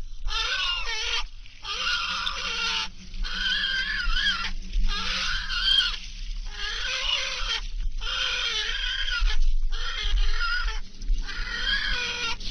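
Peregrine falcon at the nest calling again and again in alarm as an owl attacks: about eight calls, each about a second long with short breaks, the pitch wavering within each call.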